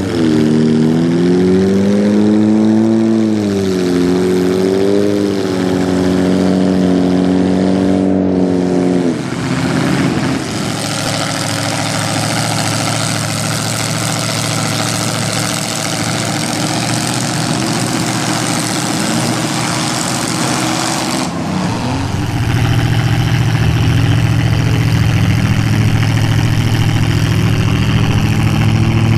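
Pickup truck engine driving through a mud pit, revving up and down several times at the start. After a cut about a third of the way through it runs at a rougher, noisier pitch, and about two-thirds in it changes to a steady low drone as the truck wallows in deep mud.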